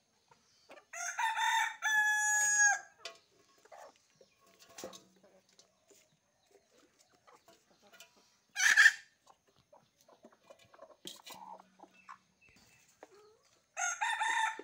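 Rooster crowing twice, once about a second in and again near the end, each crow ending in a long held note. A short loud rasping sound comes about halfway through, with scattered soft clucks from the hens in between.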